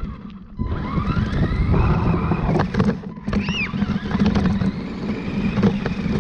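Radio-controlled truck driving: its motor whine rises in pitch as it speeds up about a second in, over a steady rumble and rattle from the wheels and chassis. The sound dips briefly near the start and again about three seconds in.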